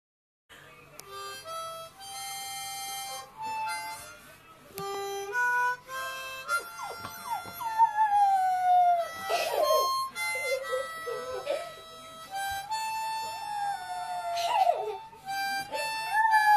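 Harmonica playing a tune of held, stepping notes; from about six seconds in a boxer puppy howls along, repeatedly, in long wavering wails that slide down in pitch.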